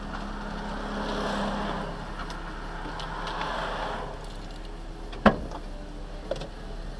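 Street traffic heard from inside a stopped vehicle, with passing cars swelling and fading. One sharp knock comes about five seconds in, with a fainter one a second later.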